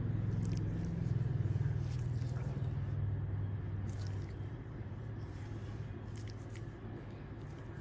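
Steady low hum, slowly fading toward the end, with a few faint clicks.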